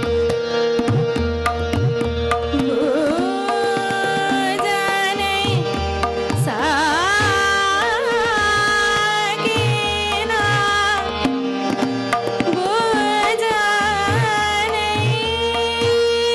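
Hindustani classical vocal in raga Rageshree: a woman sings slow, gliding, ornamented phrases, entering about three seconds in. Tabla keeps a steady rhythmic cycle beneath, with harmonium following the melody over a tanpura drone.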